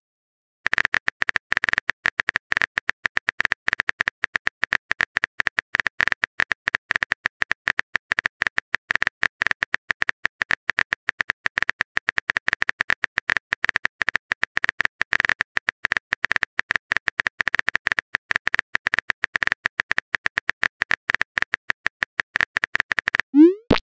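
Texting-app typing sound effect: a fast, steady stream of sharp keyboard-like clicks as a message is typed out, ending near the end with a short rising pop as the message is sent.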